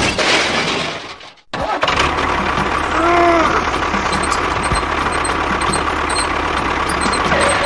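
A louder noise fades out over the first second and a half; then a steady engine running sound starts and holds, with one short rising-and-falling tone about three seconds in.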